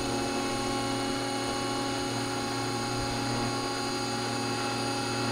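Radio-controlled scale helicopter hovering: its rotor and drivetrain run at a steady speed, giving an even whine made of many fixed tones.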